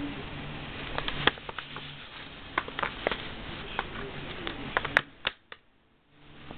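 Irregular sharp clicks and taps, several of them, over a steady background hiss, with a brief drop to near silence about five seconds in.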